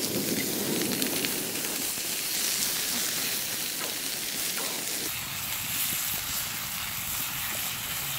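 Beef mince and tomato sauce sizzling steadily in a frying pan over a wood campfire, stirred with a spatula.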